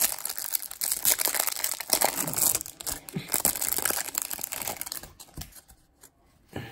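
Cellophane wrapper on a stack of trading cards crinkling and tearing as the cards are pulled out of it. The crackling dies down about five seconds in.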